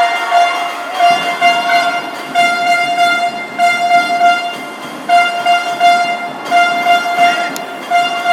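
Football fan's hand-held horn blown in a long run of blasts, each about a second long, all on the same high, brassy note.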